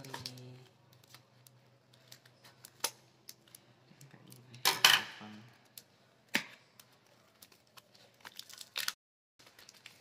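Scissors snipping at packing tape on a parcel, then the tape and wrapping being pulled and torn off by hand, with a louder rip about five seconds in and scattered clicks and crinkles.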